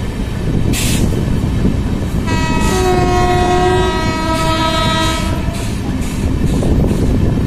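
Passenger train running at speed with a steady rumble of wheels on rail, and about two seconds in an electric locomotive's horn sounds for about three seconds in two notes, the second a little lower.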